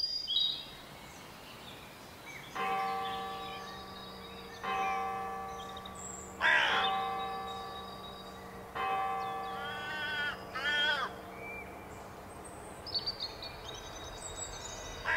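A church bell tolling four slow strokes about two seconds apart, each ringing on and fading away. Then a crow caws twice, with faint high bird chirps near the end.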